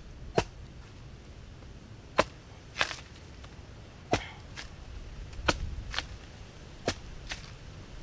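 A knife blade chopping into the husk of a green coconut: about eight sharp strikes, spaced irregularly roughly once a second.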